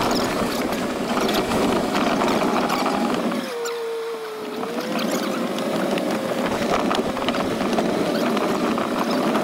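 Dirt bike engine running steadily under a rush of wind noise. About three and a half seconds in the revs drop briefly, as the throttle is eased off, then climb back to a steady pitch.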